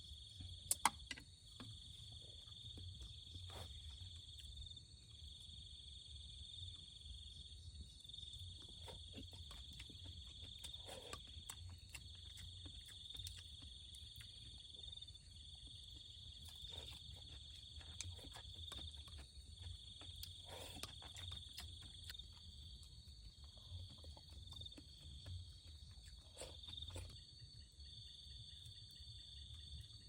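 Crickets chirring in a steady high-pitched trill that pulses gently. A few faint clicks and knocks are scattered through it, with a sharp click about a second in.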